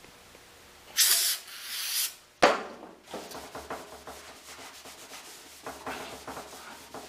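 Two hissing bursts of an aerosol brake-cleaner spray about a second in, then a sharp knock, then a shop towel scrubbing the wet, painted steel fuel tank in quick repeated strokes.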